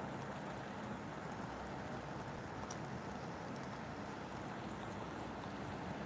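Steady rain falling, an even hiss with an occasional faint tick of a drop.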